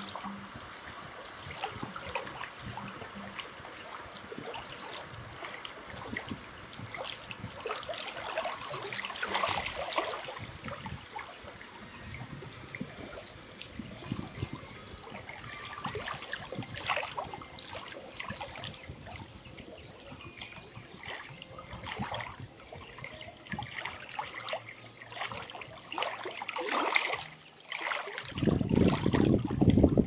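Small waves lapping at a rocky lakeshore: an irregular, trickling patter of little splashes against the stones. Shortly before the end a much louder low rumble sets in.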